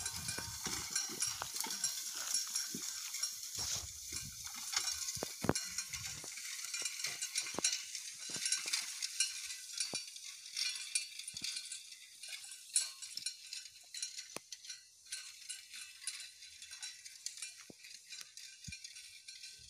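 Horse-drawn hay rake dragging its tines through dry cut hay: a dense crackling rustle with scattered sharp clicks, growing fainter as the rake moves away.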